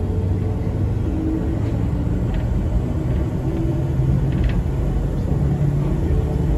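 Enoden electric railcar running along the track, heard from inside the front of the car: a steady low rumble of wheels and motors with a hum. A few faint, brief high squeaks cut through, one near the middle.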